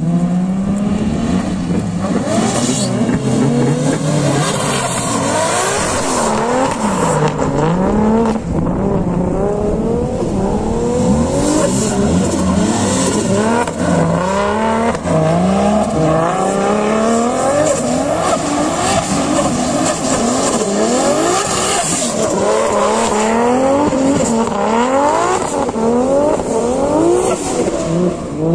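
Drift car engine revving hard, its pitch climbing and dropping over and over as the throttle is worked through the slides, with tyres squealing as the car skids sideways.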